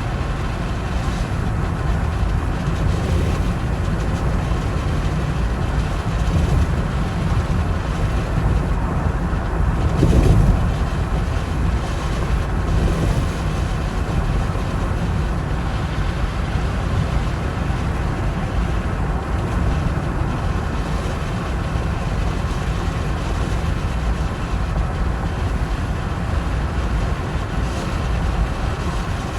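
A car driving on a snowy road: steady low rumble of engine and tyres, with a brief louder surge about ten seconds in.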